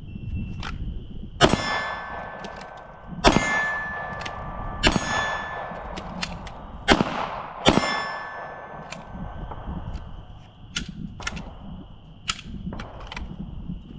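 Five pistol shots from a Sig Sauer P320 in the first eight seconds, each hit followed by the ringing of steel targets, then several fainter sharp cracks.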